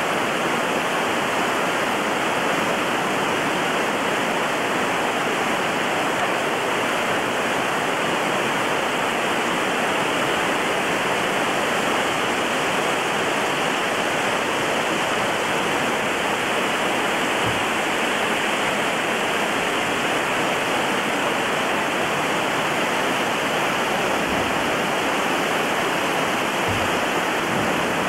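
Steady rush of river water running over rocks and small rapids, with a few faint low knocks in the second half.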